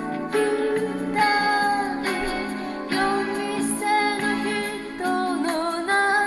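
A woman singing a song with instrumental backing, her long held notes wavering with vibrato.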